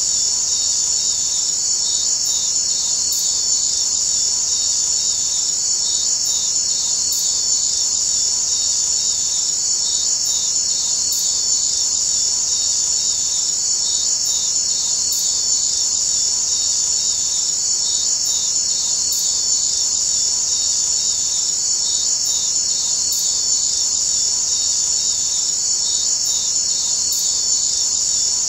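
Steady, high-pitched insect trilling, like a cricket chorus, with an even repeating pulse and no change in level.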